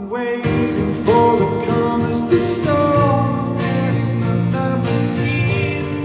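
Live performance of a ballad: steadily strummed acoustic guitar with a sung lead vocal coming in about a second in, heard through a concert hall's PA.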